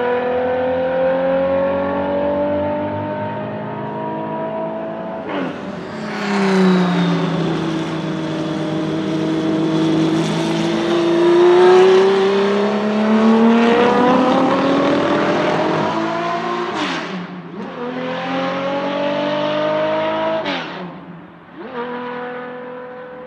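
Porsche 917K's air-cooled flat-twelve racing engine accelerating hard, its pitch climbing through the gears with several quick upshifts, easing off into a corner in the middle and pulling hard out of it, then fading as the car draws away near the end.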